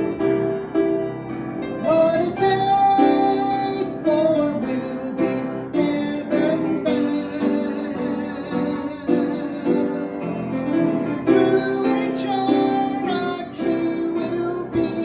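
Piano playing a slow gospel hymn, with a melody line over sustained chords.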